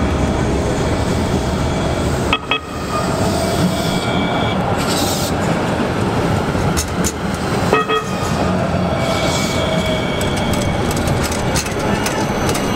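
NJ Transit Hudson-Bergen Light Rail car, a Kinki Sharyo low-floor electric tram, rolling past at close range on street-running track with a steady rumble and whine. It gives two short horn toots, about two and a half seconds in and again near the eight-second mark.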